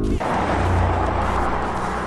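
Porsche Cayenne S V8 driving fast: a dense rushing mix of engine and road noise that sets in suddenly just after the start, with background music.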